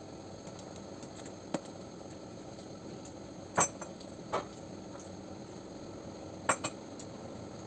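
Dishes and utensils being handled at a kitchen sink: a handful of sharp clinks and knocks, the loudest a quick pair about three and a half seconds in and another pair about six and a half seconds in.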